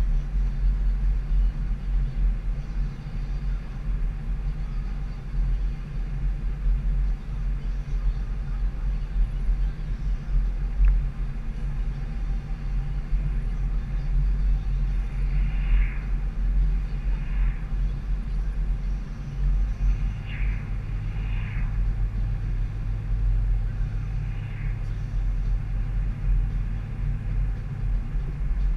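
Car driving along a road, heard from inside the cabin: a steady low rumble of engine and tyres, with a steadier hum joining in about two-thirds of the way through.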